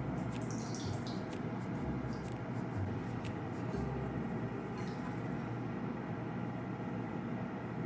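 Thin streams of liquid pouring: the excess marinade poured off the chicken, then a beaten egg poured over the raw chicken pieces, with many small drips and clicks in the first half.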